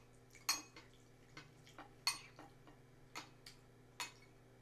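Close-miked eating: a handful of short, sharp clicks and smacks from chewing, the loudest about half a second and two seconds in, over a faint low hum.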